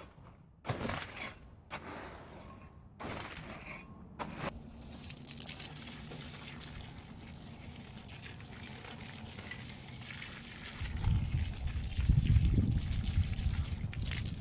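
Water running steadily, as if pouring or filling a container, after a few knocks in the first seconds; it grows louder with a low rumble from about eleven seconds in.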